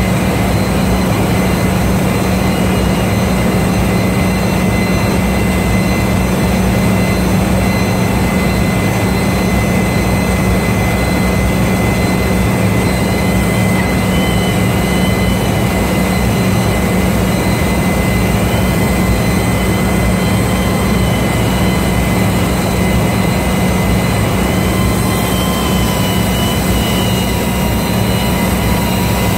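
Handheld power grinder running steadily against the head of a ship's main-engine exhaust valve, cleaning it: a constant low hum with a high whine over it, and a faint wavering squeal added about halfway in.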